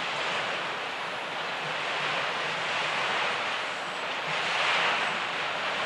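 Freight train of autorack cars rolling past: a steady rushing noise of steel wheels on the rails, swelling a little about five seconds in.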